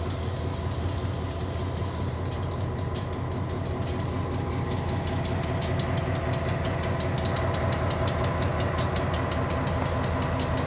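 EMD GP15-1 diesel-electric locomotive with its 12-cylinder EMD 645 engine running at low throttle as it moves slowly past, shoving gondola cars: a steady low engine rumble that grows louder about halfway through as the locomotive comes alongside, with a rapid, even high ticking joining in about four seconds in.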